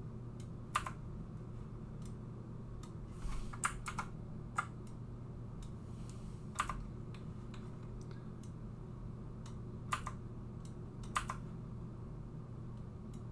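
Separate clicks of a computer keyboard and mouse: single key presses such as Delete and Ctrl+Z, about a dozen at irregular intervals with a quick cluster a few seconds in, over a steady low hum.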